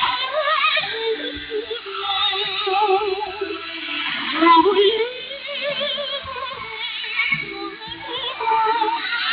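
A woman singing a solo song with heavy vibrato over instrumental accompaniment, heard through a shortwave radio receiver, so the sound is narrow and thin with no high treble.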